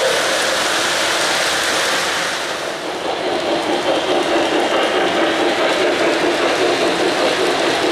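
Three-rail O-gauge model trains rolling past close by: a steady clatter and whir of the cars' wheels on the track and the locomotives' motors. The sound dips briefly about two and a half seconds in, then comes back as another train passes.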